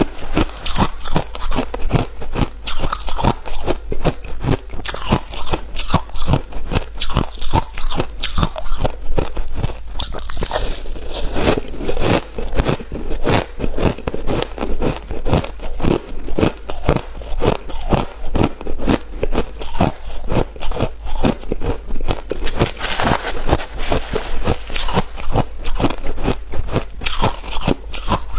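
A person biting and chewing ice, with rapid, repeated crunches close to the microphone.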